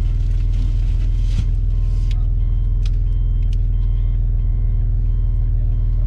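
Off-road 4x4's engine idling steadily, heard from inside the cab. A faint electronic beep repeats in short dashes, and a few light clicks sound in the first half.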